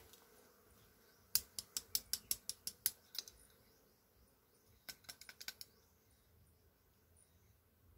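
Hand pruning shears snipping and clicking, first in a quick run of about ten sharp clicks, then in a shorter run of about six clicks.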